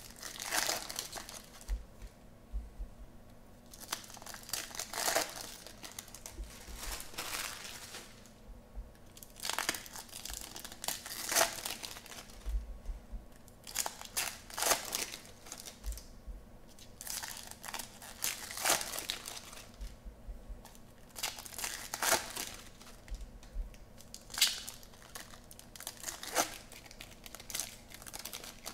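Foil trading-card pack wrappers being torn open and crinkled by hand, in repeated bursts with short pauses between.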